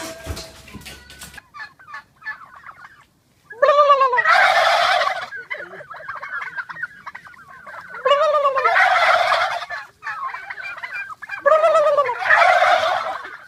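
A flock of domestic turkeys gobbling, several birds at once, in three loud bursts about four seconds apart, with softer scattered calls between them.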